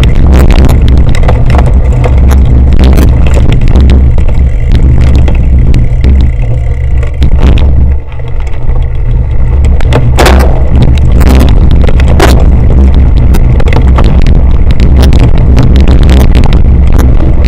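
Wind buffeting the microphone of a camera on a cyclocross bike riding fast over rough grass, with clicks and rattles as the bike jolts over bumps. The rumble eases briefly about eight seconds in.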